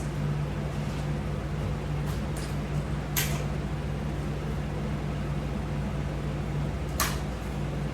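Steady low room hum from a fan or air conditioner, with a few short clicks and clacks about two to three seconds in and again near the end as resistance-band straps and gear are put away.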